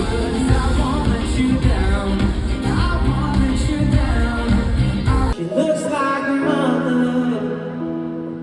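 Loud live concert music with singing, heavy in the bass. About five seconds in it cuts off abruptly to quieter music with long held notes.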